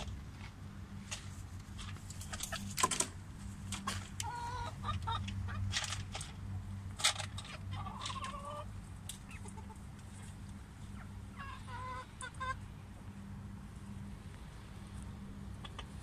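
Ring-necked pheasants giving short pitched calls in three brief groups, about four, eight and twelve seconds in. Scattered clicks and knocks and a steady low hum run underneath.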